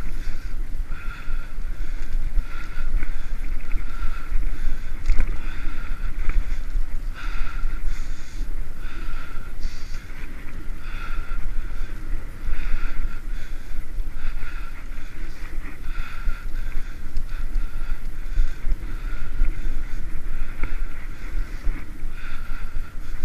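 Wind buffeting on a bike-mounted GoPro microphone over the steady rumble of bicycle tyres on an asphalt path at riding speed. A higher hiss swells and fades every second or so.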